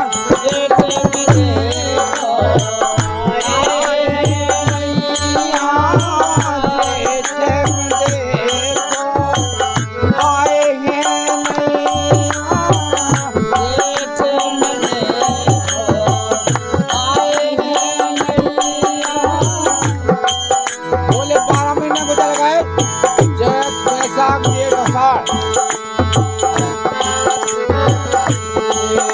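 Bundeli Kartik folk song played live: harmonium and a singing voice over a steady dholak drum beat, with small hand cymbals jingling in an even rhythm.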